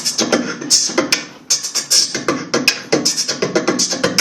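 Human beatboxing: a fast, rhythmic run of mouth-made drum sounds, low kick-like thumps mixed with hissing hi-hat-like strokes, several each second.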